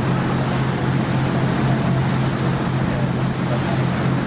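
Tour boat's engine running steadily with a low, even drone, under a constant hiss of water and wind passing the boat.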